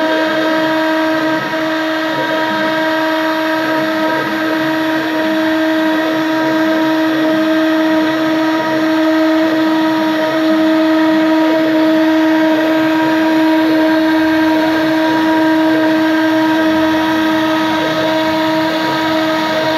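CNC engraving machine running, its spindle giving a steady high whine.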